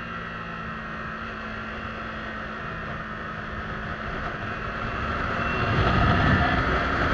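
Yamaha YZF-R3's parallel-twin engine running at a steady speed under a rush of wind and road noise, heard from the rider's seat. Near the end the steady engine note gives way to a louder, low rumble.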